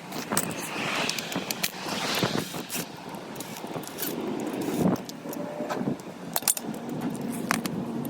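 Scattered metallic clinks, knocks and rattles of hand tools and parts being handled during car suspension work.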